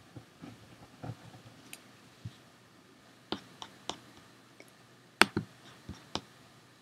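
Scattered clicks of a computer mouse as the pointer closes an image and selects files, the loudest about five seconds in.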